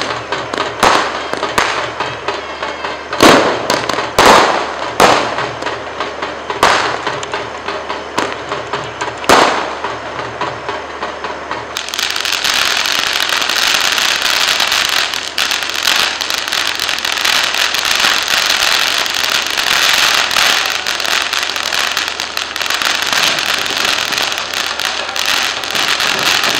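Fireworks going off: about seven separate sharp bangs in the first ten seconds, then from about twelve seconds in a dense, unbroken crackle of firecrackers exploding in rapid succession on the ground.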